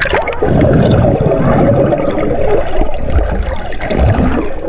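Pool water bubbling and churning, heard from underwater: muffled and low, with a couple of dull thumps in the second half.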